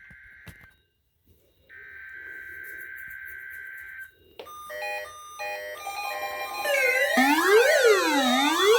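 Electronic alarm tones. A steady high tone breaks off and, after a second's gap, sounds again for about two seconds. It is followed by a run of stepped beeps. From about seven seconds in, several overlapping rising-and-falling siren sweeps come in, louder.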